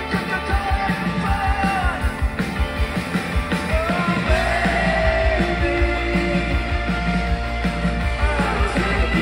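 Live rock band playing loud: a singer singing over electric guitars, bass and drums. The bass gets heavier about four seconds in.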